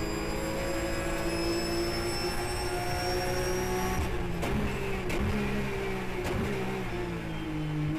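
Porsche Carrera Cup race car's flat-six engine heard from inside the car, pulling at full throttle in fifth gear with its pitch climbing steadily. About halfway through the driver brakes hard and changes down quickly, and each downshift is heard as a sharp crack and a step in engine pitch, a few times in a row. Near the end the engine note drops as the car slows for the corner.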